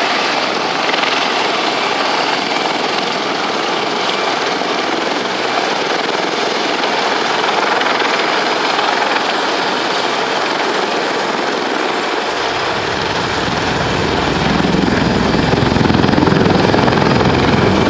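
Airbus A320's jet engines running at low power as the airliner rolls along the runway after landing: a steady, broad rushing whine. From about twelve seconds in, a low engine rumble grows louder as a bus drives past close by.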